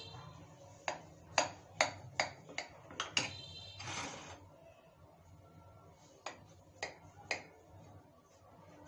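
Steel kitchen knife clicking against a ceramic plate as it cuts down through a soft cake: a quick run of about seven sharp clicks, then three more spaced clicks a few seconds later.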